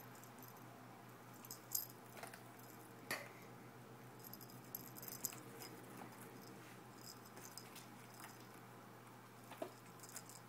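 Faint, intermittent jingling and rattling with a few light knocks, from a cat playing at its scratching post.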